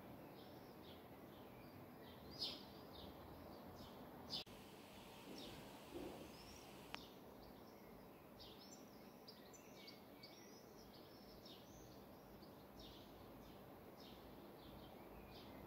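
Faint outdoor ambience with small birds chirping in short, high calls throughout, a few of them louder in the first half, and a brief click about four seconds in.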